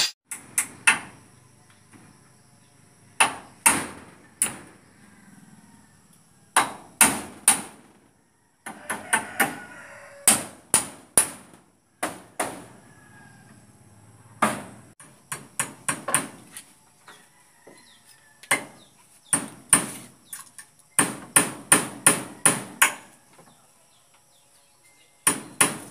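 Hand hammer striking the wooden framing, in irregular runs of two to five sharp blows with short pauses between.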